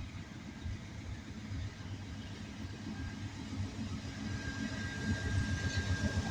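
Diesel locomotive engine rumbling and growing steadily louder as the train draws near, with a faint high steady whine joining about halfway through.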